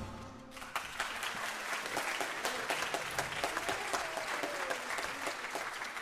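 Audience applauding, the clapping starting about half a second in and beginning to fade near the end.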